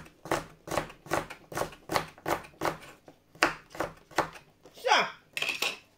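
Crinkle-cut knife chopping raw carrot into strips on a cutting board: a steady run of knocks, about two to three a second, then a louder scraping sound near the end.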